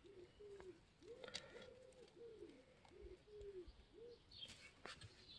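Faint bird calls: a run of short, low, arched notes, about two a second, that stop about four seconds in, with a few faint clicks.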